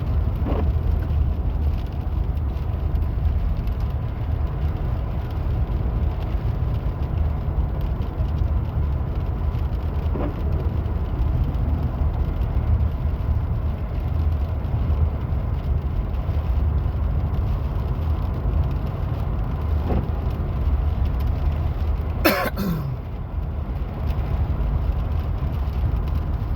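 Steady low rumble of a car's engine and tyres heard from inside the cabin while driving on a wet road. A short sound falling in pitch comes about 22 seconds in.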